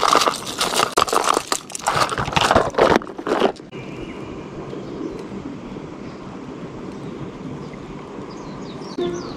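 Hard plastic fishing lures clicking and clattering in a plastic tackle box as a hand rummages through it, for about three and a half seconds, then only a steady faint outdoor hiss.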